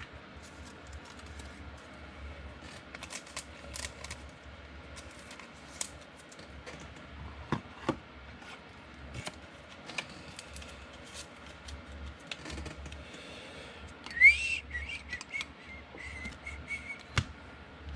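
Scattered soft clicks and snaps of trading cards being handled and sorted. Near the end comes a short whistle that rises and then holds a steady tone for about two seconds.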